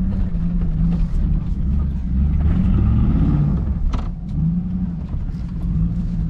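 Pickup truck engine running under load, its pitch rising and falling as the throttle comes on and off while it is driven over rough ground. A single sharp knock comes about four seconds in.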